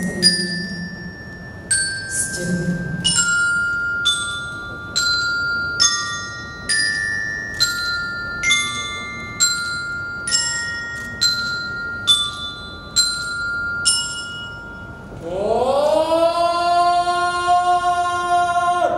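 Glockenspiel-like mallet percussion plays a slow melody, one ringing note a little under every second. Just past the middle the notes stop, and a long held note slides up at its start and then holds steady.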